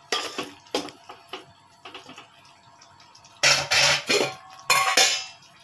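Steel spoon stirring a thick chicken gravy in an aluminium pot: a few short scrapes against the pot, then two louder metallic clatters of spoon on pot in the second half.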